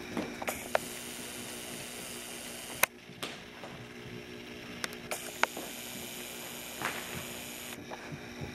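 Steady low electrical hum, with a few sharp clicks scattered through it, the loudest almost three seconds in.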